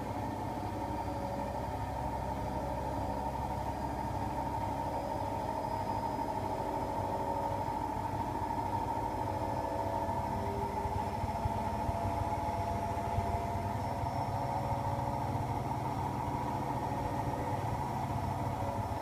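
Siemens iQ700 front-loading washing machine running steadily through its Rapid 20 programme: a continuous motor whine with several steady tones over a low drum hum.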